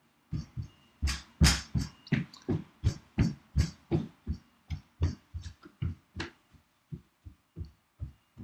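Snap-off utility knife cutting channels in EPP foam for the wing spars: a run of short cutting strokes, two or three a second, getting quieter toward the end.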